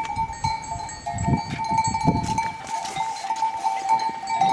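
Sheep bells clinking and ringing continuously as a flock grazes, several bells at slightly different pitches sounding together.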